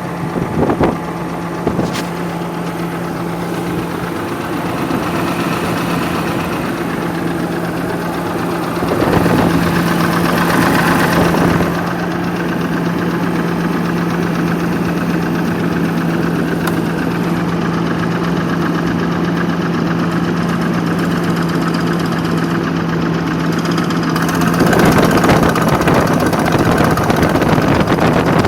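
BMW 745's N62 V8 idling, with a steady knock coming from the engine. The owner says the knock is the same cold or hot and disappears above about 1500 rpm, and that the engine runs well with no fault codes. The sound gets louder for a couple of seconds about a third of the way in and again near the end.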